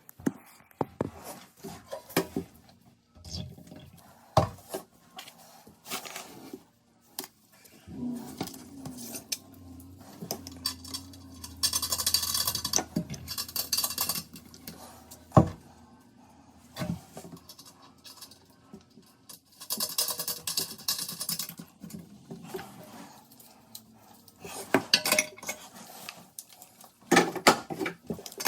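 Metal hand tools and bolt hardware clinking and clattering, with scattered sharp knocks and two spells of rapid clicking.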